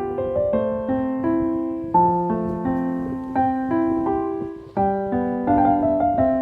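Background music: a gentle piano melody with chords, each note struck and fading.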